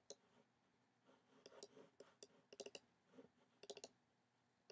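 Faint computer mouse clicks, a handful scattered through, some in quick pairs.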